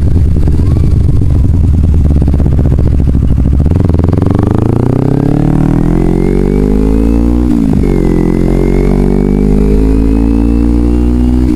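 Kawasaki Ninja 250's parallel-twin engine heard from the bike as it rides. It runs low and steady for about four seconds, then rises in pitch as it accelerates, drops sharply at an upshift about seven and a half seconds in, and climbs again in the next gear.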